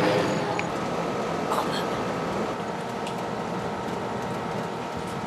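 Steady mechanical noise with a faint, steady high whine, louder in the first second and then even.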